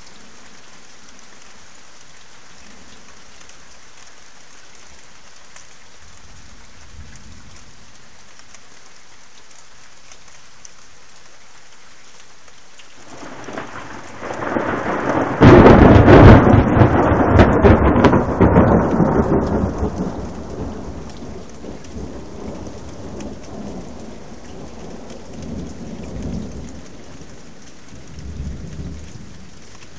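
Steady rain hiss, then a long peal of thunder about halfway through: it swells in, breaks into a sudden loud crash, and rolls away in fading rumbles over the following ten seconds.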